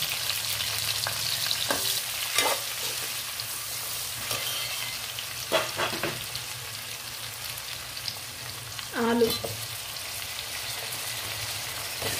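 Sliced onions, green chillies and whole spices sizzling steadily in hot oil and ghee in an aluminium pot, with a steel spoon stirring and scraping against the pot a few times. One louder ringing knock about nine seconds in.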